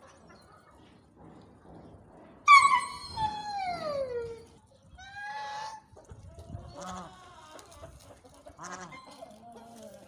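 Farmyard animal calls: one loud, drawn-out cry falling in pitch about two and a half seconds in, followed by several shorter honks from white domestic geese.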